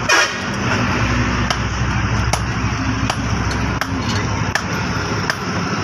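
Hand hammer striking axe steel on an anvil in a slow, even rhythm of about one blow every three-quarters of a second, the first blow the loudest, over a steady background din.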